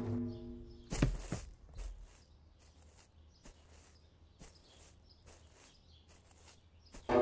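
A dramatic music hit rings and fades away, with a heavy thump about a second in. Then come soft, irregular crunching steps on gravel, and a second music hit near the end.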